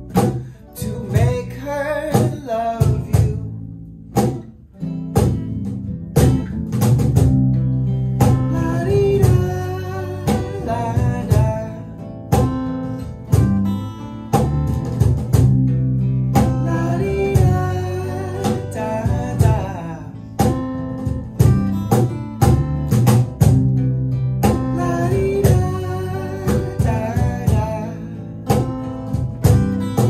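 Small acoustic band playing a surf-flavoured rock song: strummed acoustic guitars and an electric bass line over a steady cajon beat.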